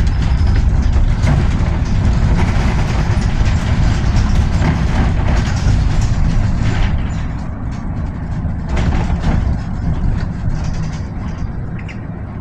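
Cabin noise of a Solaris Urbino 18 Electric articulated bus on the move: a steady low road rumble with rattling of the bodywork. It is louder while the bus rolls over cobblestones and eases after about seven seconds on smoother asphalt.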